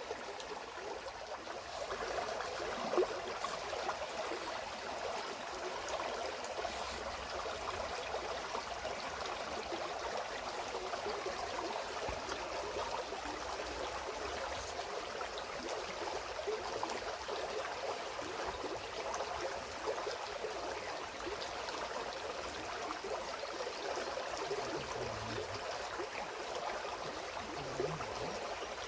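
Waterfall splashing and rushing steadily, with one brief louder click about three seconds in.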